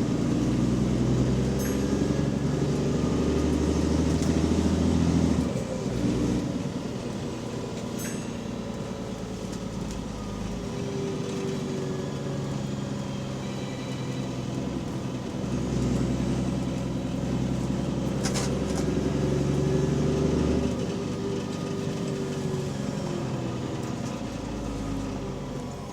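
Bus engine and leaking exhaust heard on board, the engine note pulling louder under load for the first few seconds, dropping, then pulling up again about two-thirds of the way through before easing off. A few short sharp rattles sound over it.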